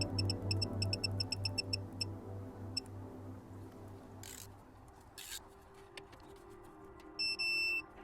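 Background music with a pulsing beat fades out in the first couple of seconds. Then come two brief hisses, and a short, loud electronic beep near the end.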